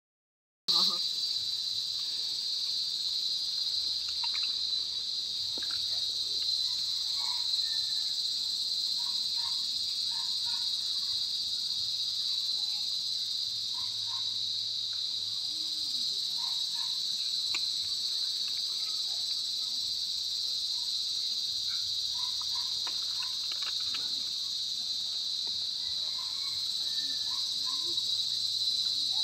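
Steady, high-pitched chorus of insects: one unbroken shrill drone that keeps an even level.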